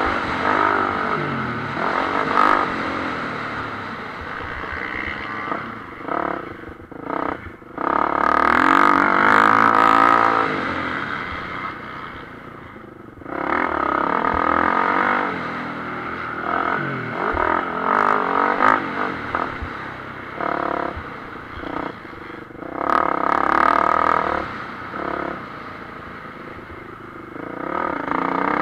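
Motocross bike engine heard from on the bike, revving up and easing off again and again as the rider races, the pitch climbing under throttle and dropping when it is shut off, with short lulls about 7 and 13 seconds in.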